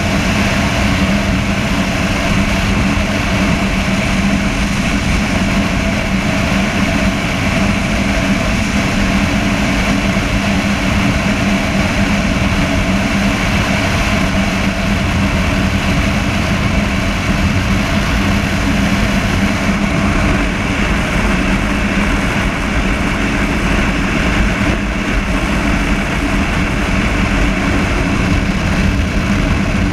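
Honda motorcycle engine running steadily at cruising speed, a constant hum with no gear changes, mixed with wind rush and rumble on the chest-mounted camera's microphone.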